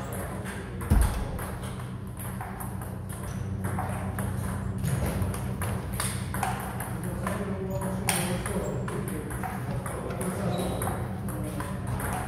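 Table tennis ball clicking off bats and table again and again in rallies, with one louder thud about a second in, over a steady low hum.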